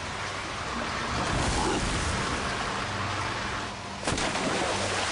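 Heavy storm rain and wind, a dense steady hiss with a faint low hum underneath. It swells about a second in, and a sudden louder rush starts about four seconds in.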